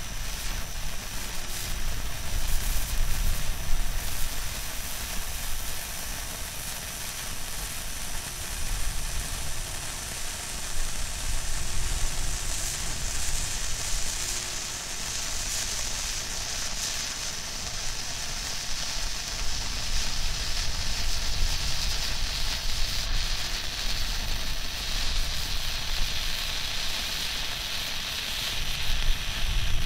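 Handheld fountain firework burning with a steady hissing spray, with a low rumble underneath.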